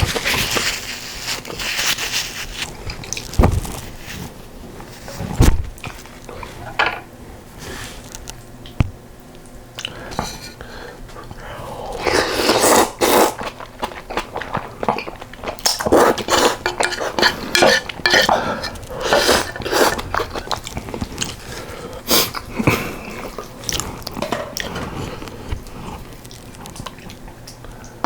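Close-miked eating: chewing mouthfuls of rice in yukgaejang soup and fresh geotjeori kimchi, with spoon and chopsticks clicking against the bowl. The eating gets busier about halfway through.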